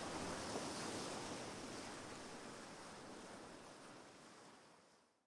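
Dark ambient outro of a rushing, surf-like noise with no clear pitch, fading out gradually over the last few seconds of the track until it dies away completely.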